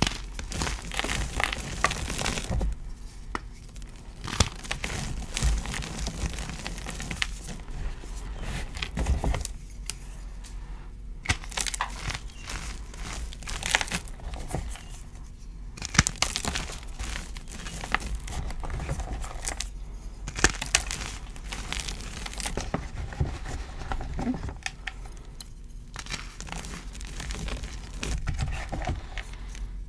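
Dyed gym chalk being crushed and crumbled by hand: crunchy crackling as the blocks break up, coming in spells with brief pauses between, and loose powder rustling under the fingers.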